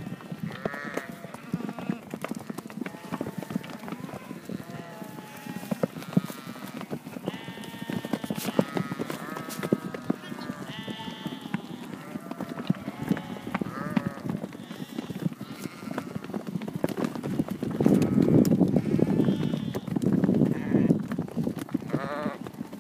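A herd of ewes and lambs bleating, many calls overlapping at different pitches, with hooves clattering as the sheep crowd through a wooden chute. The clatter and rush of the sheep grow louder in the last few seconds.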